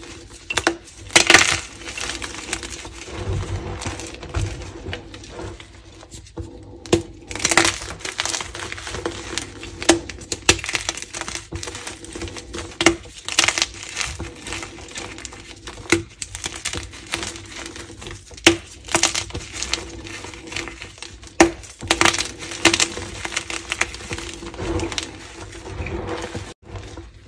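Blocks of gym chalk being crushed and crumbled by hand in a pile of broken chalk and powder: irregular crunches, with sharp cracks and snaps as chunks break apart.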